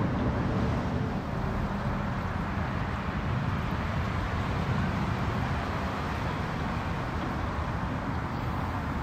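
Boat engines running steadily at the ramp, a continuous low rumble.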